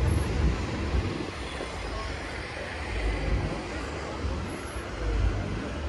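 Blackpool heritage railcoach tram no. 631 running past on the street tramway, a steady low rumble with a hiss over it.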